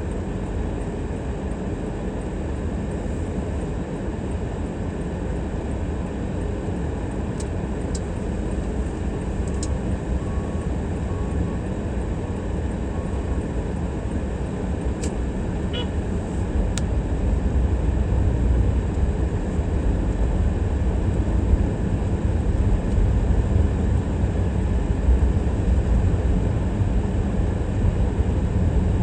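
Steady low rumble of a car being driven, engine and road noise, growing somewhat louder in the second half, with a few faint sharp clicks.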